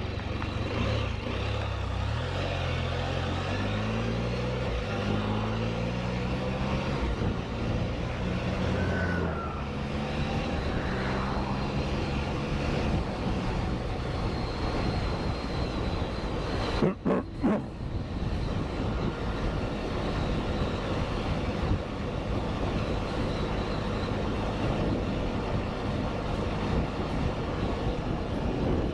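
Can-Am Spyder RT three-wheeler's engine pulling away, its pitch rising in steps through several gear changes for the first ten seconds or so, then settling into a steady cruise with wind and road noise. A little past halfway the sound briefly cuts out with a couple of sharp knocks.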